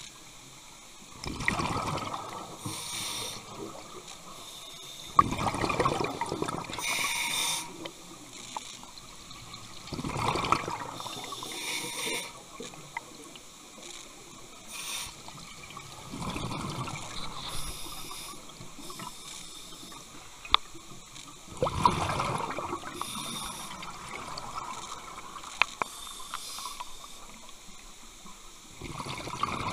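Scuba diver breathing through a regulator, heard underwater: a bubbling burst of exhaled air about every five seconds, with fainter hiss between, and a few sharp clicks.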